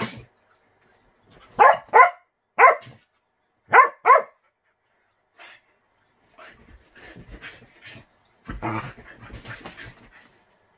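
A dog barking five short barks, in a pair, a single and another pair, followed by quieter scuffling and movement sounds.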